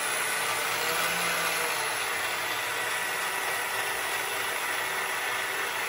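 The electric motor and four-wheel-drive gearing of a 1/6-scale FMS Suzuki Jimny RC crawler running at a steady speed, with the wheels spinning free while it sits on a stand. The sound is a steady whirr with a faint high whine.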